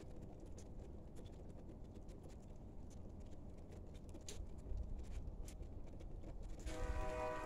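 Light, irregular ticking of falling snow pellets over a low outdoor rumble. Near the end a distant train horn starts sounding: a chord of several steady tones that becomes the loudest sound.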